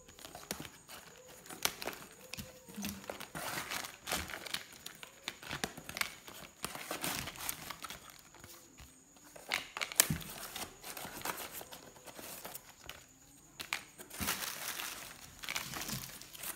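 Plastic packaging and stationery rustling and crinkling as items are pressed by hand into a cardboard box, with scattered clicks and taps; one sharp click about ten seconds in.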